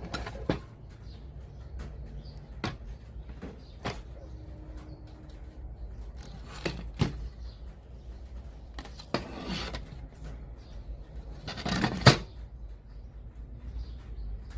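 Scattered sharp clicks and knocks, with a few short rustling stretches, from hands working on a radio-cassette player, over a steady low hum. The loudest knock comes about twelve seconds in.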